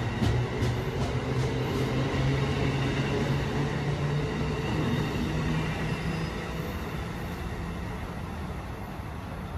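Amtrak passenger train of stainless-steel Amfleet coaches rolling past and pulling away along the platform, wheels clicking a few times at first over a steady rumble that fades as the last car recedes.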